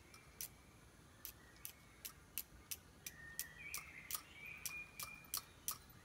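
Repeated short, sharp scrapes of a striker on a fire-starting rod, throwing sparks to light a fire. They come about two to three times a second and quicken in the second half.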